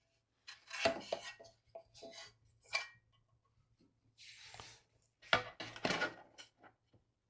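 Hands handling hard teleprompter parts and metal screws: bursts of clinks and knocks about a second in, around two to three seconds in and again near the end, with a short rustle in the middle.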